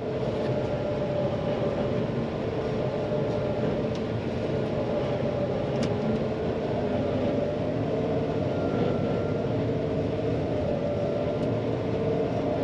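Large farm harvest machinery running steadily under a diesel engine, a constant engine hum over broad mechanical noise, with a few faint clicks.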